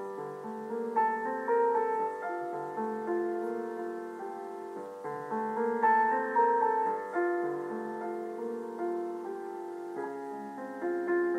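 Background piano music: a gentle melody of single struck notes over chords, each note fading after it is played.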